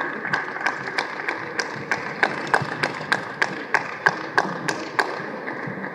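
Table tennis rally: the plastic ball clicking sharply off the rubber bats and the table in an even rhythm, about three hits a second, stopping about five seconds in.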